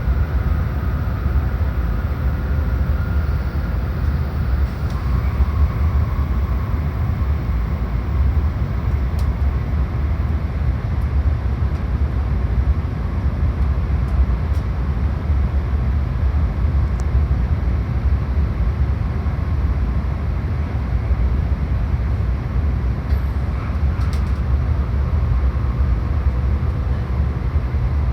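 JR Kyushu N700-series Shinkansen train running: a steady low rumble with faint whining tones that step down in pitch about four to five seconds in.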